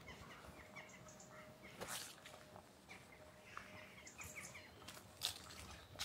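Faint, scattered short high chirps and calls of small woodland songbirds, over a faint steady hum. Two brief sharp crackles come about two seconds and five seconds in.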